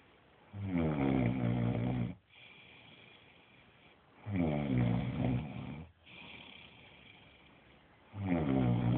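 A child snoring: three long, low snores, each about a second and a half, coming roughly every three and a half seconds with quieter breathing between them.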